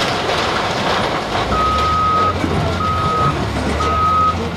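Heavy vehicle's reversing alarm beeping, a single high steady tone sounding three times about a second apart starting a second and a half in, over a diesel engine running.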